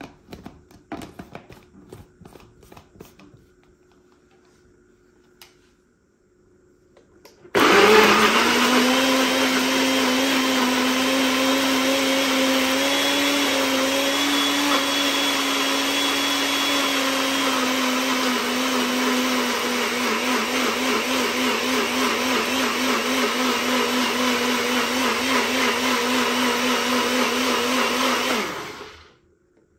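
Nutribullet personal blender's motor starts suddenly and runs steadily for about twenty seconds, blending peppers, onions and herbs with oil and no water into a thick purée; a fast flutter comes into the whine in the second half, and near the end it winds down quickly and stops. Before it starts, a few clicks and knocks as the blade base is twisted onto the cup and the cup handled.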